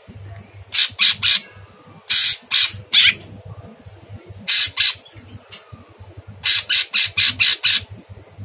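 Caged cucak cungkok, a leafbird, giving harsh, rasping calls in short clipped bursts: three quick ones about a second in, a longer group around two to three seconds, a pair a little after four seconds, and a rapid string of about six near the end.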